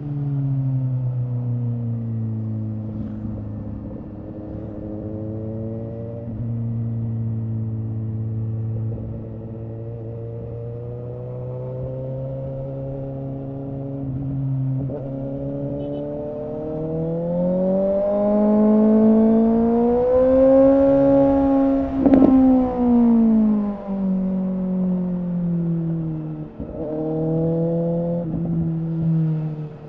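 A 2017 Suzuki GSX-S750's inline-four runs through a Yoshimura R11 exhaust with the dB killer removed, under way at a steady note. About two-thirds of the way in it revs up for several seconds, rising in pitch to its loudest, then falls back as the throttle closes.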